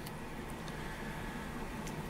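Quiet room tone: a low steady hum under a faint hiss.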